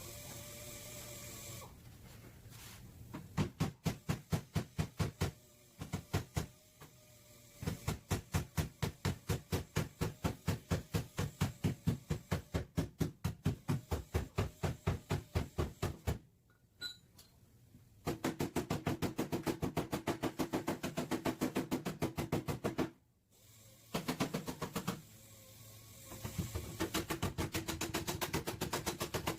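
Body hammer beating out the dented sheet-metal back panel of a car: quick, even strikes at about four a second, in runs broken by short pauses.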